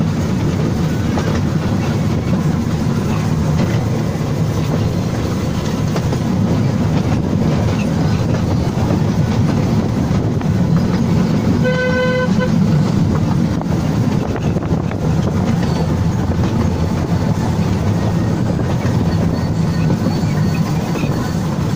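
Small narrow-gauge tourist train running along its rails, a steady low rumble heard from inside the front car. About halfway through, its horn sounds once: a short single-pitched toot of under a second.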